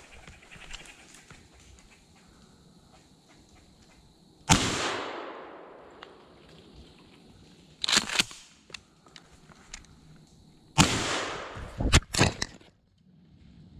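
Two shotgun blasts about six seconds apart, the first about four and a half seconds in, each trailing off in a long echo. A couple of sharp clacks fall between them, and right after the second shot comes a clatter as the recoil knocks the head-mounted camera off and it tumbles into dry leaves.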